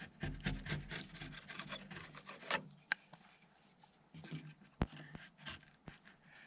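Irregular scraping and rubbing strokes on wood, quick and busy at first, then sparser with a few sharp clicks or taps about halfway through.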